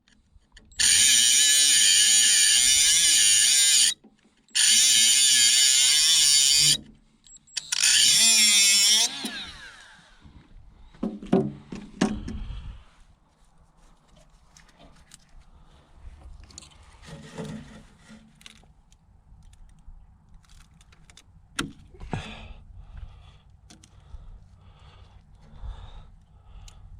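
A handheld power tool running in three loud bursts of a few seconds each, its pitch wavering as it loads up, followed by scattered light clicks and knocks of tools and parts being handled.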